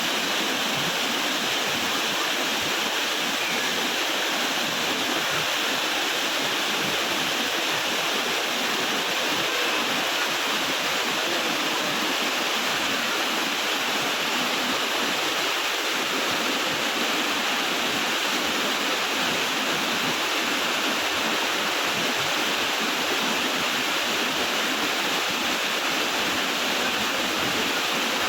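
Waterfall: water pouring and splashing in a steady, unchanging rush.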